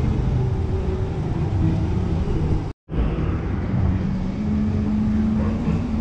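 Steady low rumble of motor engines mixed with street noise, dropping out to silence for a moment about three seconds in.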